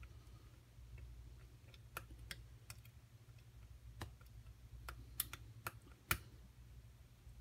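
Scattered light clicks of a lock pick working the pins of a pin tumbler lock during single-pin picking, with a few sharper clicks about four to six seconds in, over a low steady hum.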